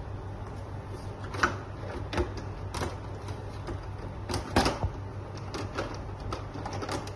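White plastic outer panel of an Origin Novita ND50 dehumidifier being pulled off the unit: a string of irregular plastic clicks and knocks, the loudest cluster about four and a half seconds in, over a steady low hum.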